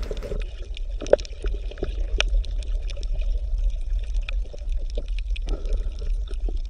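Bubbling water ambience: a steady low rumble with irregular small bubble pops and gurgles.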